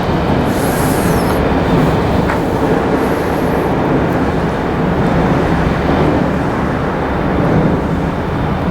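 Loud, steady rumble of heavy diesel machinery at a rail yard where sand is being loaded into trucks, with two brief high hisses in the first few seconds.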